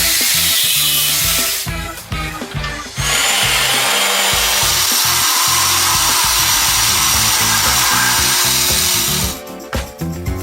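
A power tool running in two stretches, about two seconds and then about six seconds, over background music with a steady beat.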